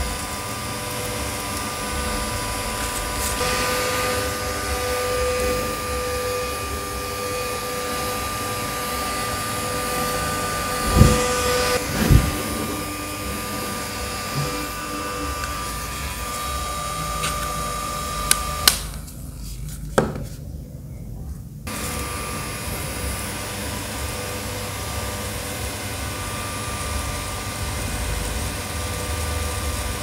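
Small battery-powered mini fans running with a steady whirring hum and a thin high whine. A few sharp clicks come near the middle, and the sound cuts out for about three seconds a little past halfway.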